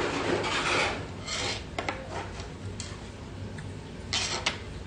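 Close-up eating noise for about the first second, then a metal spoon clinking and scraping against a metal ramen pot in a string of sharp clicks and short scrapes, the loudest a little after four seconds in.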